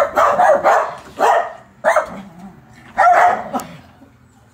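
A small dog barking: several barks in quick succession, then a few more spaced about a second apart, stopping shortly before the end.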